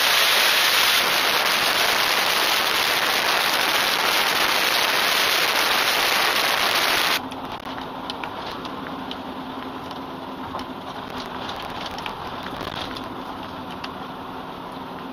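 Loud, steady rush of wind over a camera mounted on a motorcycle riding at highway speed. About seven seconds in it cuts abruptly to the quieter inside of a moving SUV: a steady low engine and road hum with a few faint ticks.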